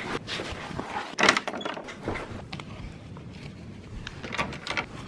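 Handling noise as things are gathered and packed into a fabric backpack: rustling with a string of irregular clicks and knocks, the loudest about a second in.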